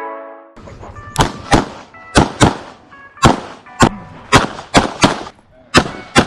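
Handgun shots fired rapidly during an IPSC stage, about eleven loud shots, many of them in quick pairs.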